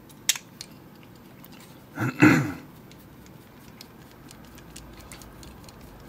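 A brass padlock with keys on a ring being handled while a screwdriver is worked into it toward the core-retaining screw: light metal clicks and one short, louder rattle about two seconds in.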